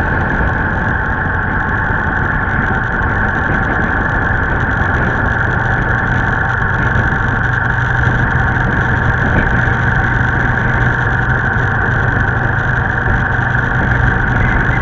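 Steady drone of a vehicle engine with road and wind noise, heard from a vehicle moving along the road.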